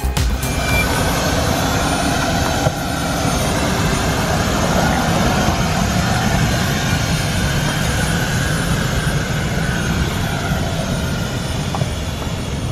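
Electric-hybrid converted 1986 Mazda RX-7 driving slowly past: a steady rushing noise with a faint wavering whine, fading near the end as the car drives away.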